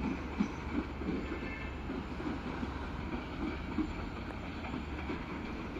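A departing passenger train's wheels clacking over rail joints and points, about two to three knocks a second, over a steady low rumble.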